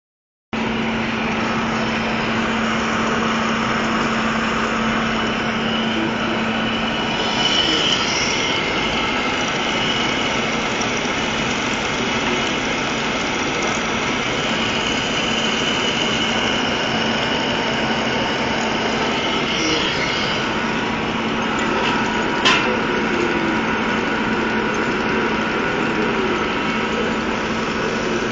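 Old LeBlond engine lathe running under power while turning steel: a steady mechanical whir with a low hum, a changing higher whine from the cut, and one sharp tick about 22 seconds in.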